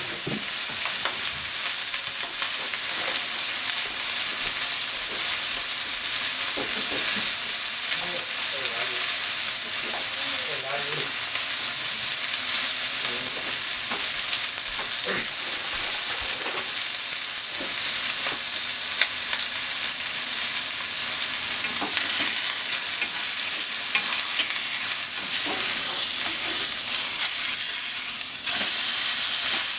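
Chicken thighs sizzling skin-side down in oil in a non-stick frying pan: a steady hiss with scattered small pops. Near the end the pieces are moved with chopsticks and the sizzle gets a little louder.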